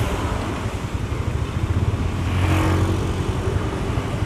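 Automatic motor scooter running while ridden slowly in town traffic, a low engine drone with road noise, swelling a little about two seconds in as it closes up behind another motorcycle.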